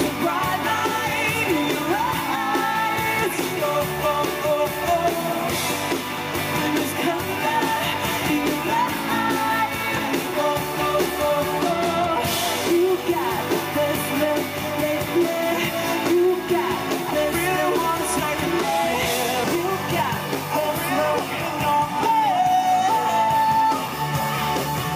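Pop-rock song with a singer over electric guitar and a steady beat.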